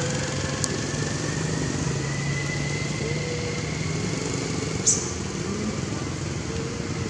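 A small motorcycle engine running steadily, its whine slowly rising in pitch. A short rustle sounds about five seconds in.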